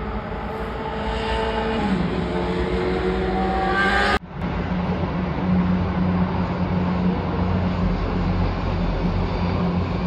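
Steady city traffic noise with a vehicle accelerating, its pitch rising for a couple of seconds until it cuts off abruptly about four seconds in; after that a steady low traffic hum.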